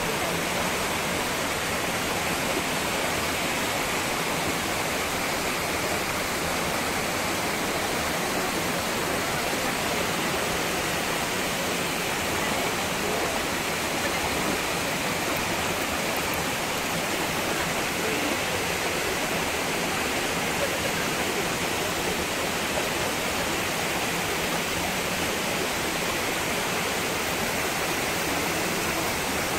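Small waterfall and stream rushing steadily over rock cascades, a constant full-toned water noise.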